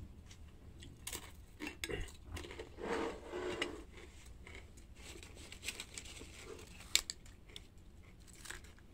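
A metal spoon clinking and scraping against a plate of rice in small, irregular taps; the sharpest clink comes about seven seconds in.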